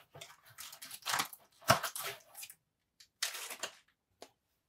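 Paperboard box flaps and foil trading-card pack wrappers rustling and crinkling in short, irregular bursts as packs are pulled from a blaster box, with a sharp tap about a second and a half in.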